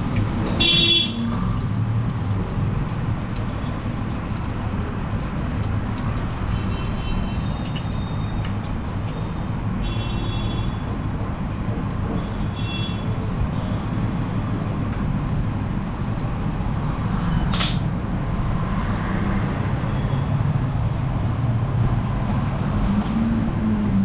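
Steady low rumble of motor vehicles running, with a few short horn toots and one sharp click partway through.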